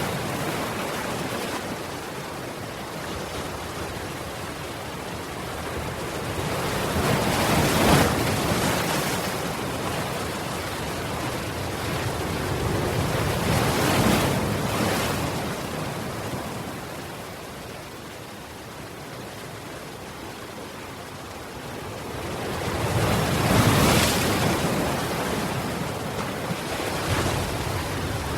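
Ocean waves breaking and washing on the shore, with three louder surges about six to ten seconds apart over a steady rush of surf.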